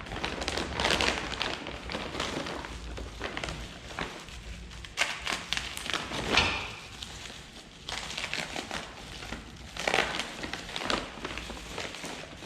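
Suspension parts and their packaging being handled: irregular crackling and rustling with short knocks, loudest about six seconds in and again near ten seconds.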